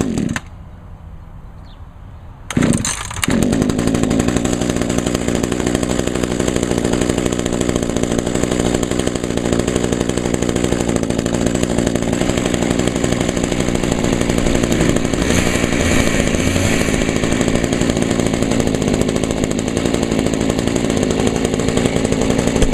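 Small two-stroke hedge trimmer engine pull-started: a brief burst at the start, then it catches about two and a half seconds in and runs steadily and loudly at high idle. A second trimmer engine runs faintly underneath.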